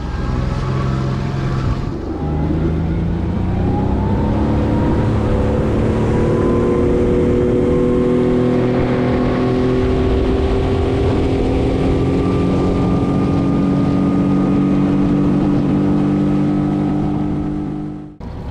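Outboard motor of a fishing boat under way: the revs climb over the first few seconds, then hold at a steady cruising speed. The sound cuts off abruptly near the end.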